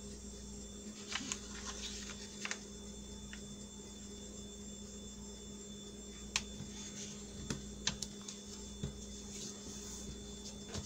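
Faint paper handling, a few soft ticks and rustles as hands smooth and crease a sheet of paper against a metal ruler, over a steady electrical hum.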